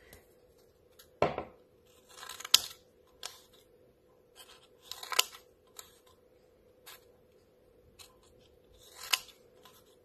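Scissors snipping through a stacked pile of folded construction paper: short separate cuts, about eight of them, spaced roughly a second apart.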